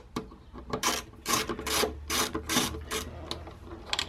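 Ratchet driver with a T25 Torx bit loosening a windscreen screw: a short rasping run of ratchet clicks on each back-swing, about two a second, growing fainter near the end.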